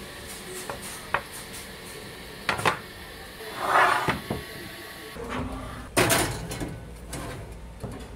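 A metal baking pan being handled and set into a countertop electric oven: scattered clicks and knocks, a scrape just before the middle, and a sharp metallic knock about six seconds in, with a low hum starting about halfway.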